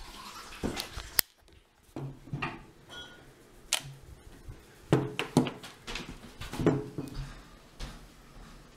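Camera handling noise: scattered clicks, knocks and rustling as a Canon DSLR is picked up and fiddled with by hand.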